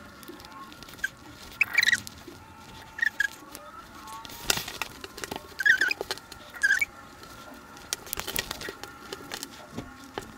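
Cotton denim trouser halves being handled and pinned together along the seat seam: scattered small clicks and fabric rustling, with a few short high chirps.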